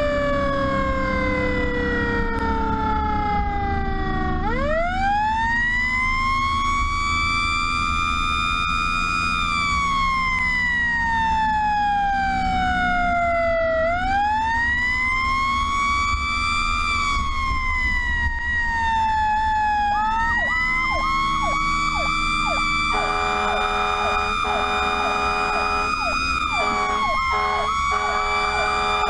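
Pierce fire truck's mechanical siren winding up and coasting down in long slow glides, repeated several times over the steady rumble of the truck's engine. About 20 seconds in come short quick blips, then the air horn sounds in long steady blasts with brief breaks.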